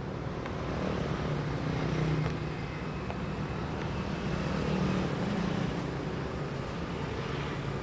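Steady background hum of road traffic: a low engine drone under an even hiss.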